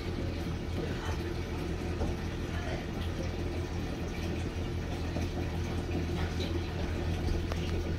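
Steady low hum of a running motor, an even drone with no change in pitch.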